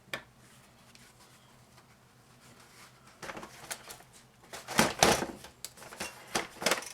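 Plastic housing of a laminator being handled and pried apart: a single click at the start, then from about three seconds in an irregular run of sharp plastic clicks, knocks and rattles, loudest around five seconds.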